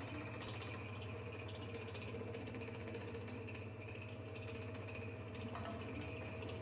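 Automatic honey uncapping machine running: a steady motor hum with a few faint clicks.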